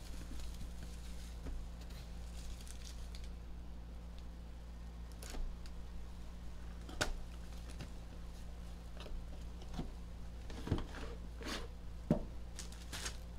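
Plastic shrink wrap being torn and peeled off a hockey card box: scattered crinkles and sharp little crackles over a steady low hum.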